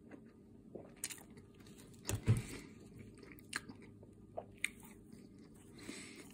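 Close-up chewing and crunching of a crispy taquito, with scattered short mouth clicks and a low double thump about two seconds in.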